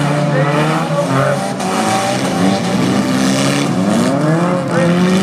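Engines of several compact race cars revving hard together on a dirt figure-eight track, one climbing sharply in pitch about four seconds in.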